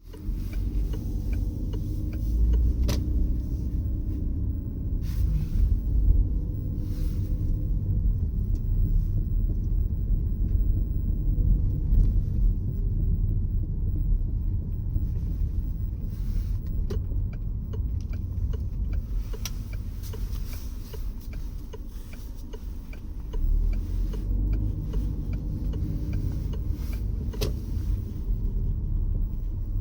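Peugeot 508 SW being driven: a steady low road rumble with short, sharp clicks or knocks at irregular intervals, the abnormal noise heard while driving.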